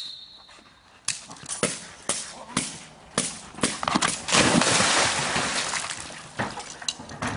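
Sharp cracks about twice a second from a decoy's stick striking during Malinois bite work, with a rushing noise lasting about two seconds in the middle.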